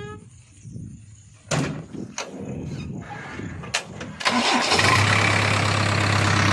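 JCB 3DX backhoe loader's four-cylinder diesel engine starting. A few sharp knocks come first; about four seconds in, the engine turns over, catches and runs loud and steady.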